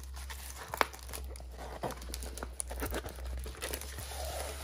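Clear plastic cover film on a rolled diamond-painting canvas crinkling and crackling as the canvas is unrolled and handled, with one sharp click about a second in.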